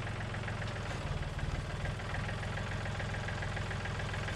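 John Deere tractor engine idling steadily. About a second in it briefly runs a little louder and higher, then settles back.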